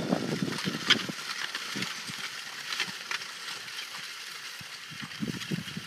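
A two-horse team pulling a steel disc harrow through tilled soil, with scattered metallic clinks and rattles from the harrow and trace chains over a faint steady outdoor hiss.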